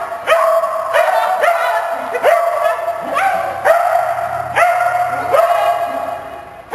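Dog barking repeatedly: about eight high barks, each sliding up in pitch at the start and then held for about half a second.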